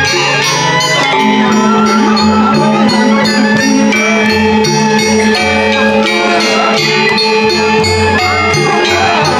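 Music with bell-like metallic tones over a bass line that moves in steps, with a steady beat.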